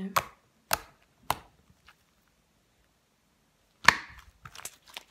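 Shaving-cream slime squeezed and worked by hand, making sharp little pops: four in the first two seconds, then a louder pop about four seconds in as it is pulled apart, followed by smaller crackles.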